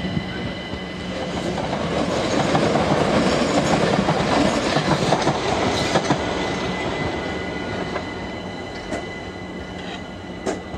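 Gatwick Express electric train running through the junction's pointwork, its wheels clattering over the rail joints and points, with a thin, steady high wheel squeal. It grows louder for the first few seconds and eases off later, and there is a sharp click near the end.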